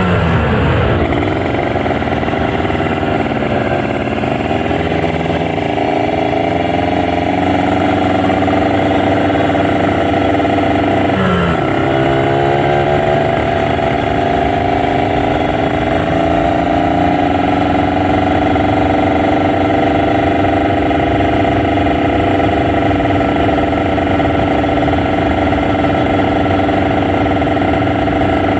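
Kawasaki Ninja RR 150's two-stroke single-cylinder engine running under way, holding a fairly steady pitch. About eleven seconds in, the pitch dips sharply and then climbs back up.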